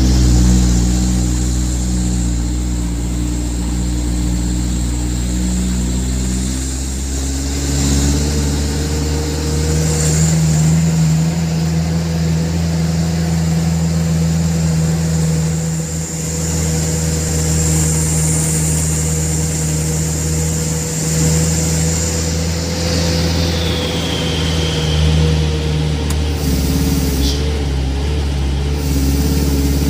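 Truck engine running steadily while driving, heard from inside the cab; its drone changes pitch about seven to eight seconds in.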